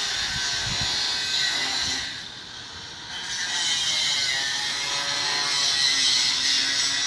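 An electric power tool running in a loud, whirring spell. It cuts out about two seconds in for roughly a second, then runs again.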